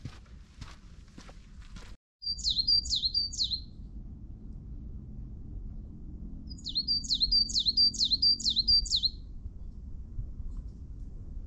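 A songbird singing two phrases of repeated, sharp, high falling notes: three quick notes, then after a pause a longer run of about seven. Before it, about two seconds of footsteps on a trail.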